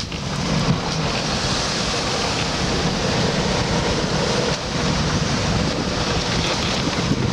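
Strong wind buffeting the microphone over the steady rush of waves and water around a sailboat in rough seas.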